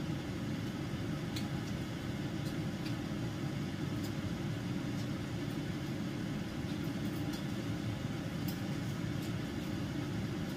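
A steady low hum, with a few faint clinks of utensils against bowls and the pot scattered through it.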